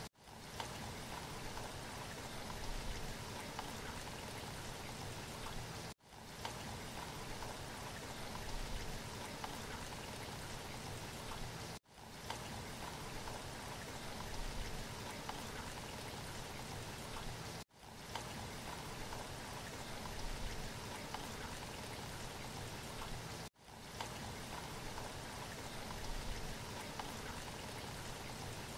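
A steady rain-like hiss with no speech: a looped background sound track that cuts out and fades back in about every six seconds.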